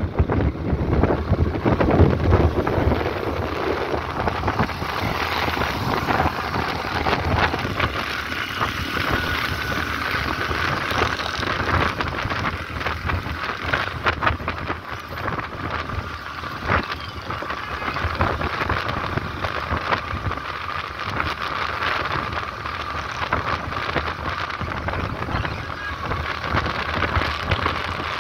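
Wind rushing and buffeting the microphone on a moving motorcycle, with the bike's engine and road traffic running underneath.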